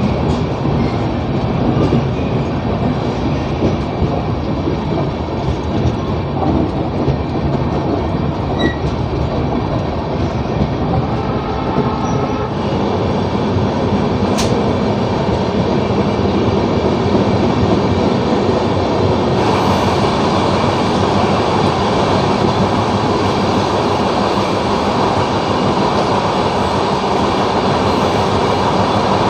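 Capital Express passenger train running along the track, with the steady rumble and clatter of its wheels on the rails. About two-thirds of the way through, the sound turns brighter and a little louder.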